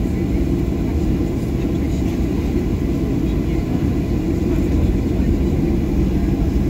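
Steady low rumble of a jet airliner's engines at taxi power, heard from inside the passenger cabin while the plane taxis.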